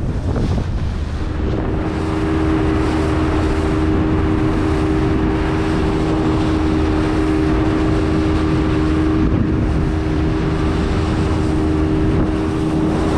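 Small boat's outboard motor running steadily, a hum of two close tones that comes in about a second in, under wind rushing on the microphone and water noise.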